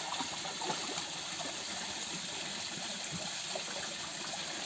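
Water running steadily into a watering pool, a continuous trickle.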